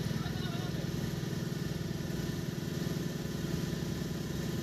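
Auto rickshaw's engine running steadily on the move, with a fast even pulsing, heard from inside the rickshaw over road noise.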